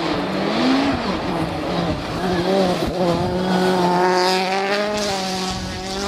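Rally car engine pulling hard at high revs, its pitch climbing briefly about a second in, then held high and steady.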